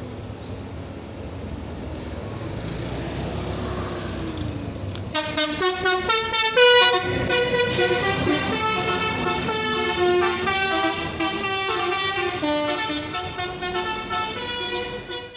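A bus engine grows louder over the first few seconds. Then, from about five seconds in, a telolet bus horn plays a fast tune of stepping multi-tone notes over it for about ten seconds.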